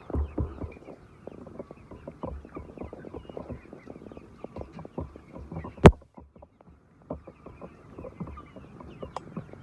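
Chickens clucking amid many small scattered knocks and taps, with one sharp loud click about six seconds in.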